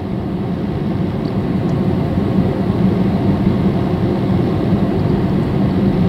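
Steady low rumble of a running vehicle engine.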